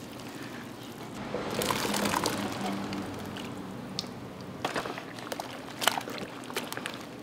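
Wet kitchen handling: a swell of sloshing, pouring liquid lasting a couple of seconds, then several sharp clicks and knocks.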